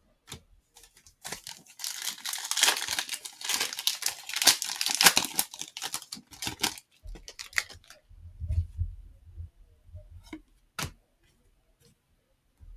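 A trading card pack's plastic wrapper being torn open and crinkled for a few seconds, followed by softer handling noises and a few sharp clicks.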